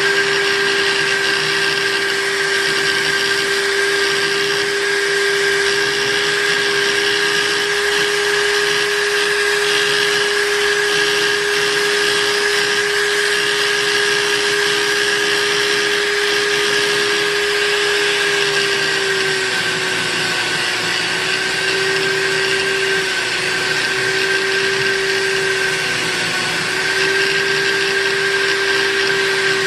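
Electric buffing machine running steadily with a constant motor whine, its pitch dipping slightly a few times in the second half.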